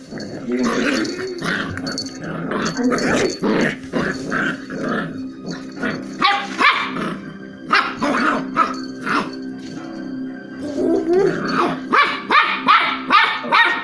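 Young cocker spaniel giving play barks at a toy, scattered at first, then a quick run of barks about three a second near the end.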